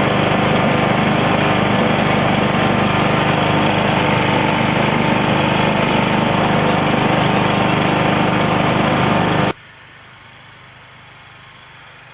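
Husqvarna lawn tractor's engine running steadily under load, heard from the seat, as the tractor pushes deep snow with a front-mounted blade. About three-quarters of the way through it cuts off abruptly, leaving a faint steady hiss.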